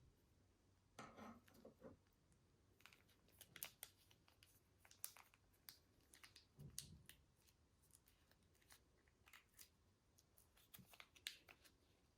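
Slime being mixed and worked by hand: faint, irregular sticky clicks and little crackling pops, with a couple of softer squishes.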